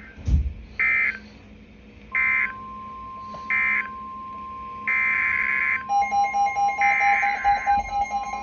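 NOAA Weather Radio Specific Area Message Encoding (SAME) data bursts, the harsh digital screech that frames emergency alerts: three short bursts about a second apart close one warning message, and a longer burst from a second station follows. A steady alert tone comes in about two seconds in, and about six seconds in a lower, pulsing alert tone joins, heralding the next severe thunderstorm warning.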